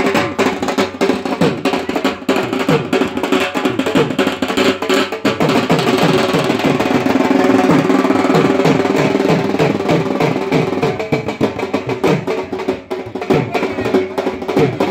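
Drums beaten in a fast, continuous rhythm, with a louder stretch of held tone over them about six to ten seconds in.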